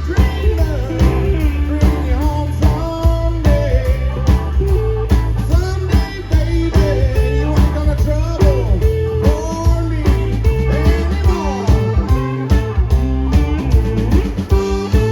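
Blues-rock band playing: an electric guitar line with bending notes over bass and a steady drum beat.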